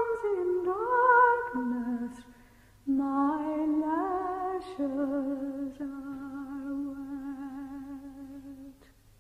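A woman's voice humming a slow, wordless folk air, with long held notes that slide between pitches and a gentle vibrato. There is a brief breath-gap a couple of seconds in, and the humming stops just before the end.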